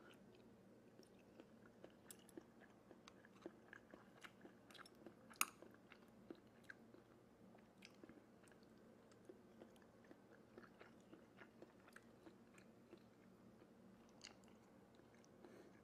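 Faint, scattered small clicks and taps of eating with metal chopsticks from a dish of stir-fry, with one louder click about five seconds in, over quiet room tone.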